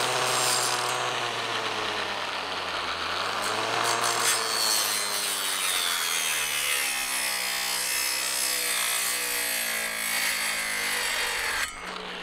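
The electric motor of a 21V cordless trimmer spins a small saw blade into a thin woody sapling stem, and its whine dips and wavers again and again as the blade loads up in the wood. The owner finds the blade too weak for this machine. The motor cuts off near the end.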